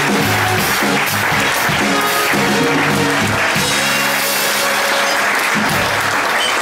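Theatre audience applauding over instrumental music.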